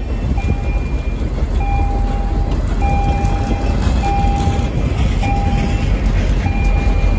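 A diesel-hauled MBTA work train passing close by, with a steady low rumble of wheels on rail and the locomotive's engine. Over it a ringing tone repeats roughly once a second.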